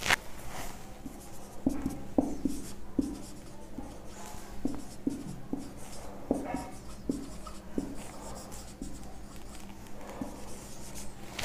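Marker pen writing on a whiteboard: a run of short, sharp strokes and taps as words are written, most of them packed into the middle few seconds, with one more stroke near the end.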